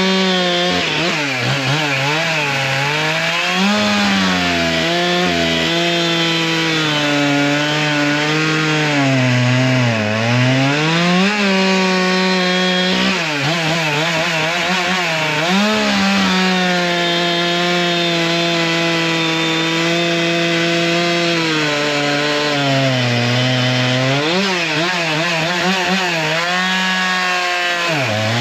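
Large two-stroke chainsaw with a 50–52 mm piston, running hard while cutting wood. Its engine pitch sags and recovers over and over, dropping steeply about ten seconds in and again near the end.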